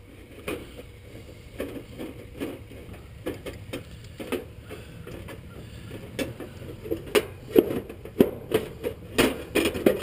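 A hand screwdriver clicking and scraping on the screws of a heat pump's sheet-metal service panel: a run of small clicks and knocks, getting louder and more frequent over the last few seconds as the panel is worked loose.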